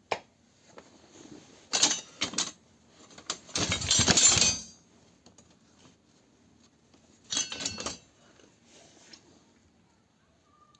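Metal objects clattering and clinking in three short bursts, the longest and loudest about four seconds in.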